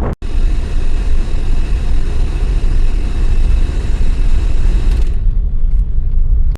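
A vehicle on the move: a steady low rumble, with the higher hiss dropping away about five seconds in.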